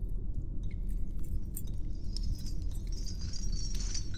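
Designed spaceship ambience: a steady deep rumble with scattered small metallic clinks, and a bright jingling shimmer from about two seconds in.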